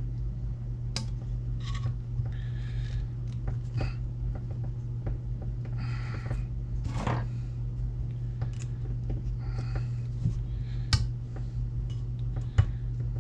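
Small metal tools clicking and scraping against a hydraulic cylinder's steel parts while a seal is picked out of its groove, as scattered sharp ticks and a few short scrapes. A steady low hum runs underneath.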